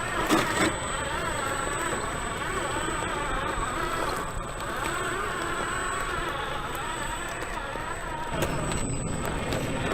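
RC4WD Desert Runner RC truck driving, its electric motor and drivetrain whining, rising and falling in pitch as the throttle changes. Short knocks come about half a second in and again near the end.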